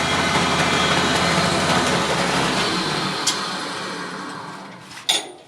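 Small electric rice mill and flour grinding machine running on a test after a new bearing is fitted, then switched off and winding down, its hum fading away over a couple of seconds. A click about three seconds in, and a knock near the end.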